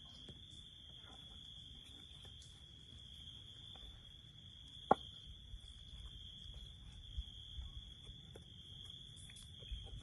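Faint insect chorus, a steady high-pitched drone, with one sharp click about five seconds in.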